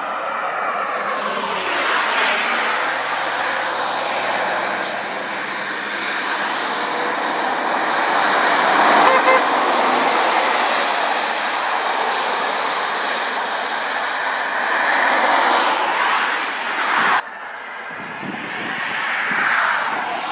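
MAN articulated lorry with a refrigerated trailer driving past close by on a wet road. Its engine and tyre-spray hiss swell to their loudest as it passes, about nine seconds in, then fade. The sound cuts off abruptly near the end and gives way to quieter traffic noise as a car passes.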